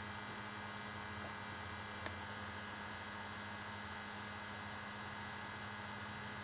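Steady electrical hum with faint hiss: quiet room tone, with a single small click about two seconds in.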